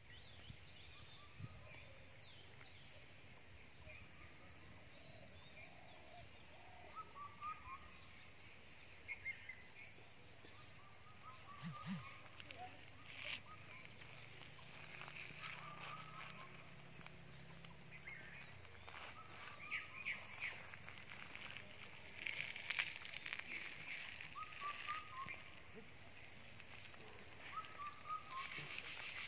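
Countryside ambience: insects keep up a steady, high, fast-pulsing trill while birds give short chirps every few seconds, with scattered faint clicks and rustles.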